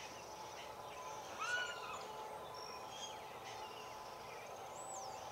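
Outdoor background noise with scattered bird calls: a short arched call about one and a half seconds in and two high, falling whistles near the end.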